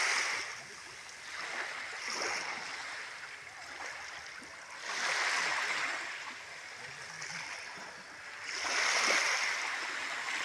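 Small sea waves washing onto the shore, the wash swelling and fading every few seconds, with the biggest surges about halfway through and near the end.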